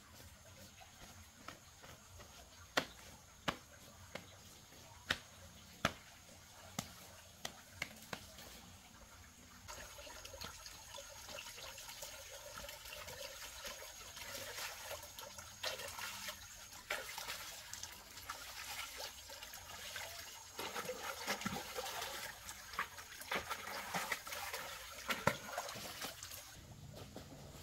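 Water splashing and trickling in a small garden fish pond as a hand dips and stirs at the edge, getting busier about ten seconds in. Before that, only scattered sharp taps.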